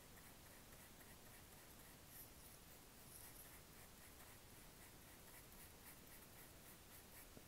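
Faint, soft brushing of a small paintbrush over chalk on paper, in short strokes repeated several times a second, as the chalk is worked on the drawing.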